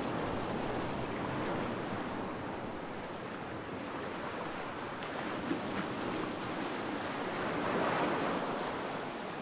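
Ocean waves washing in a steady rush that swells near the end.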